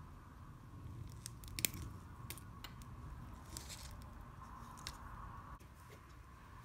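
Sharp little metal clicks and scrapes from a spring bar tool pushing a pin out of a steel watch bracelet clasp, about half a dozen of them, the loudest about a second and a half in.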